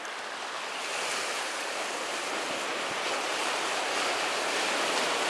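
Sea surf breaking and washing over the shore rocks close by: a steady rush of water that grows a little louder.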